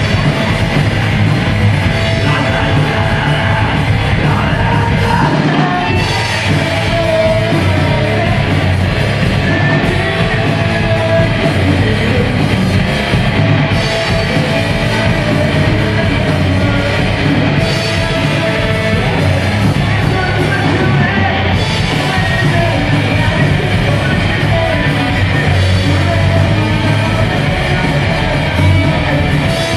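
Live rock band playing loudly: electric guitar, bass guitar and drums, with a lead singer singing into a microphone.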